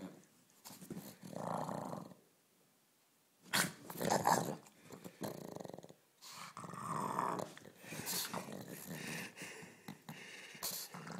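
A pug growling in play, in rough bursts, with a pause of about a second and a half a couple of seconds in, followed by a sudden loud burst.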